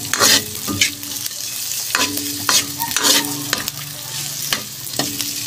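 A metal spatula scraping and clanking against a steel wok in repeated strokes, about one or two a second, stirring chili, garlic and onion that sizzle in hot oil.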